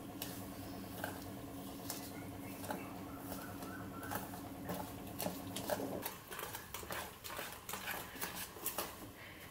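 Wire whisk beating a thick flour-and-water batter in a stainless steel bowl: quick, irregular clicks and scrapes of the wires against the bowl. A faint steady hum in the background stops about six seconds in.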